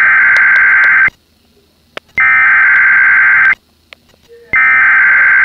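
Emergency Alert System SAME header: three bursts of buzzing digital data tones, each about a second and a half long with about a second between them, the coded opening of a Required Monthly Test.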